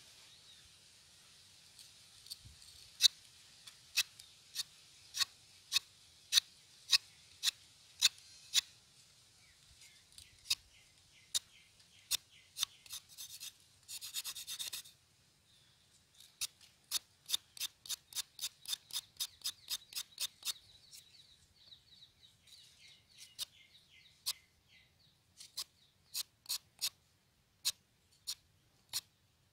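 A curved sickle-like knife scraping the bark off a thin curry-leaf stick to bare its white core: short, sharp strokes, about two a second at first, then quicker, about three a second, with one longer scrape about halfway through.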